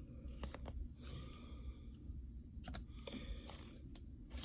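Faint handling of trading cards: a few soft clicks and two brief rustles, about a second in and about three seconds in.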